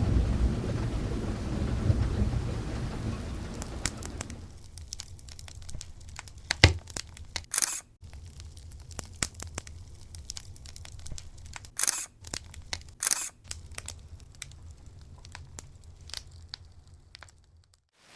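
A low rumble of thunder dies away over the first four seconds. Then come scattered sharp crackles and clicks, with a few louder cracks among them, cutting off abruptly just before the end.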